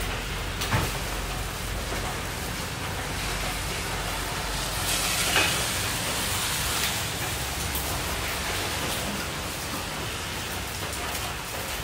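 Steady rushing background noise of a working kitchen, with a few light knocks and clatters of utensils being handled.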